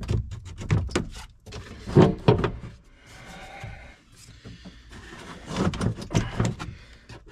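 Hard plastic air-conditioning and blower housing in a John Deere 6190R cab being handled and shifted by hand: irregular knocks, clicks and scraping of plastic against plastic, loudest about two seconds in.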